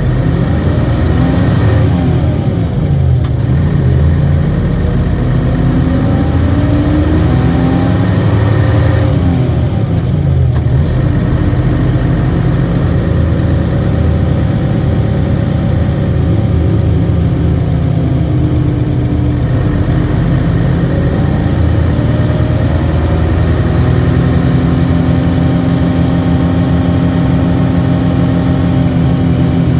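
Diesel engine of a Nissan Diesel UA460 city bus, heard from inside the bus on the move. The engine note rises and falls as the bus pulls away and changes gear in the first ten seconds, then runs more steadily near the end.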